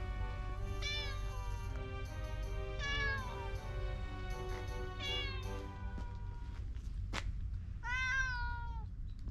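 Domestic cat meowing four times, each call a short rise and fall in pitch, the last one the longest and loudest. Background music with held notes runs underneath, and a single sharp click sounds about seven seconds in.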